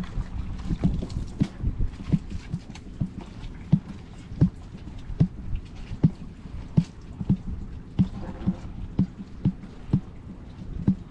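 An uneven series of short, hollow knocks, about two a second.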